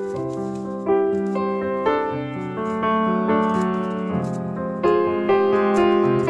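Background piano music: a slow tune of held notes, with a new note or chord struck about every second.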